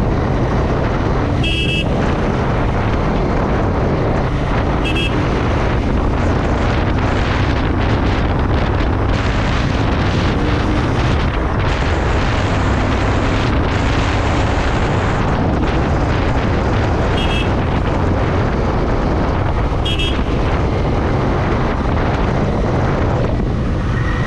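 Royal Enfield Interceptor 650's parallel-twin engine running steadily at road speed, mixed with heavy wind noise on the microphone. Four brief high-pitched chirps sound over it, about two seconds in, at five seconds, and twice later on.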